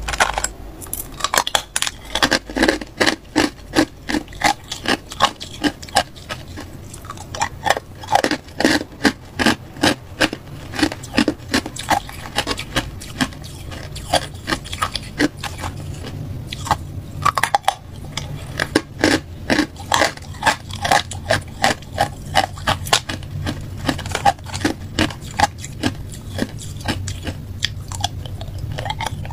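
A person chewing and crunching hard ice cubes in the mouth: a steady run of sharp, brittle crunches, several a second.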